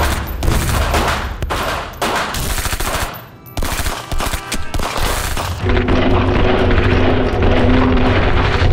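Rapid handgun gunfire, many shots in quick succession, with a brief break about three seconds in.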